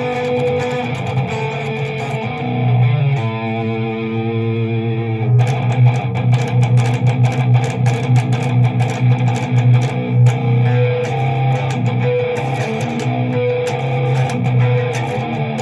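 Greco SS 600 SG-style electric guitar being played: a chord left ringing for about two seconds a few seconds in, then quick picked and strummed chords.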